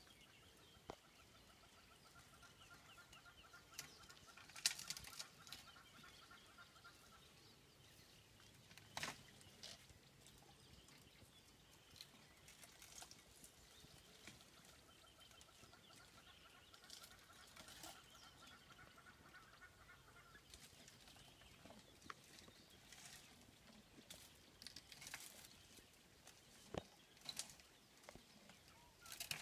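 Faint, scattered snaps and cracks of branches as an African bush elephant browses thornbush. A faint high trill comes twice in the background, each for several seconds.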